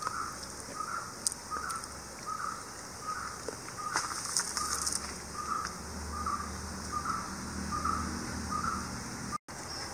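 A bird repeating one short note about twice a second over a steady high hiss, with a few sharp clicks of a steel spoon against a plate, the clearest about four seconds in. The sound cuts out for a moment near the end.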